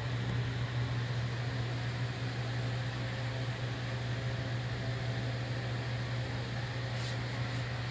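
A steady low machine hum with an even hiss, unchanging throughout, and a few faint ticks near the end.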